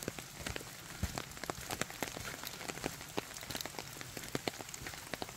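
Rain falling in a bamboo forest: many irregular, sharp drop ticks over a steady hiss.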